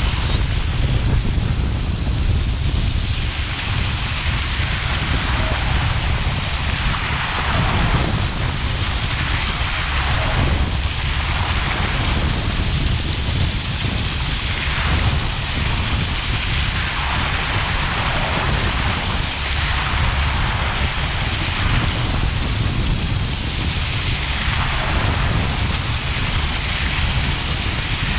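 A moving motorboat: heavy wind buffeting the microphone and water rushing past the hull, the rush swelling and fading every few seconds.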